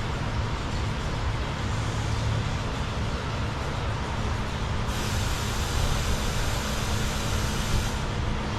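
Steady low mechanical hum and rumble of a running engine or traffic. A hiss starts sharply about five seconds in and cuts off about three seconds later.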